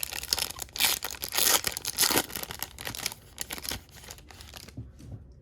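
Foil wrapper of a baseball card pack being torn open and crinkled: a run of rustling rips that fades away after about four seconds.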